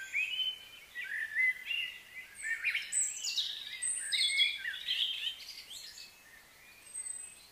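Several birds singing and chirping together, many quick overlapping high notes that slide up and down, busiest in the middle and thinning out near the end.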